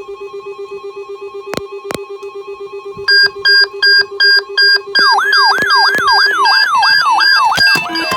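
Several NOAA weather radio receivers sounding their alert alarms, set off by the Required Weekly Test. A fast-pulsing low beep and steady higher tones are joined about three seconds in by a loud on-off beeping, about three beeps a second. About five seconds in, a siren-like warble sweeping downward about three times a second comes in, with two sharp clicks early on.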